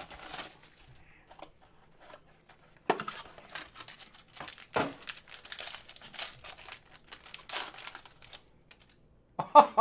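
Trading-card packaging being torn open and crinkled by hand: irregular crackling and tearing, thickest in the middle seconds, with a couple of sharper rips.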